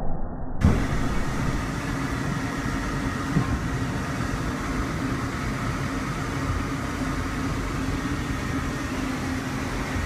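Steady rumble and hiss of a Talgo Series 8 passenger train running at speed, heard inside its restroom, with a steady low hum throughout. A sharp knock comes about half a second in.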